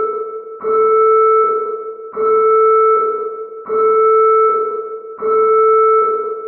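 Mobile phone emergency alert tone sounding in a repeating pattern: the same steady chord-like tone starts sharply about every second and a half and fades before the next, about four times. It is the attention signal of an 'Emergency Alert: Severe' cell-broadcast test message.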